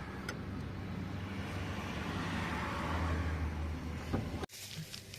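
A motor running with a steady low hum, cut off abruptly about four and a half seconds in; a few light clicks follow.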